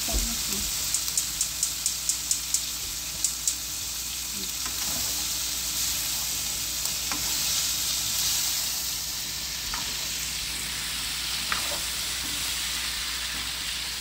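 Cauliflower and potato sizzling in hot oil in a nonstick wok while a plastic spatula stirs and turns them, a steady high hiss. Between one and three and a half seconds in comes a quick run of about ten light clicks, about four a second.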